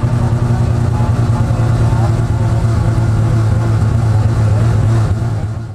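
Mazda RX-7 race car's rotary engine running at steady revs, heard from inside the stripped cabin along with road noise. The sound fades out near the end.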